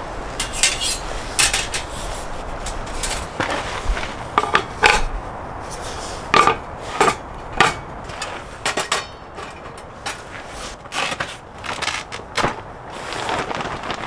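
A run of irregular sharp knocks and clinks of hard objects, some with a short ring, over a steady wind-like hiss.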